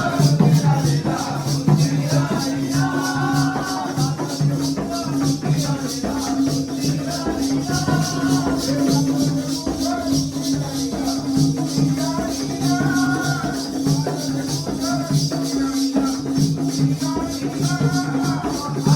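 Jakhadi folk music: a sung melody over a steady drone note and a pulsing drum beat, with a fast, even jingling rhythm running through it.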